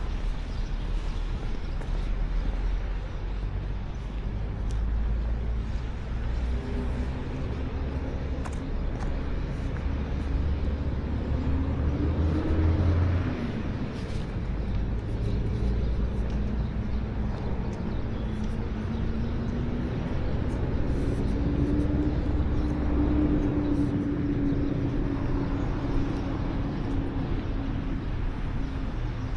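Street traffic: cars passing, with an engine hum that slowly rises and falls in pitch over a steady low rumble.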